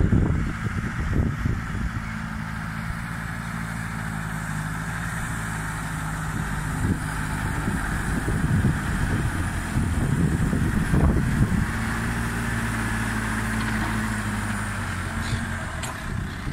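John Deere 6120M tractor's four-cylinder diesel engine running steadily under load, pulling a reversible plough through the soil.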